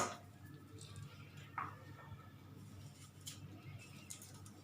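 Faint handling sounds of lemons being pressed down into a jar: a few soft ticks and one brief falling squeak about one and a half seconds in, over a low steady hum.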